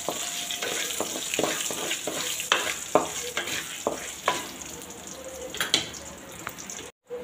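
Peanuts, dals, chillies and curry leaves sizzling in hot oil in a metal kadai, a tempering being sauteed. A wooden spatula stirs through them, scraping and knocking against the pan at irregular intervals.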